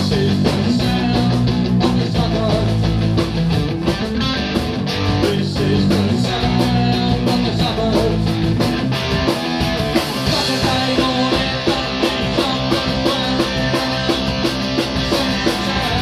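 Live punk rock band playing at full volume: electric guitar, bass guitar and drum kit, with a steady driving drum beat.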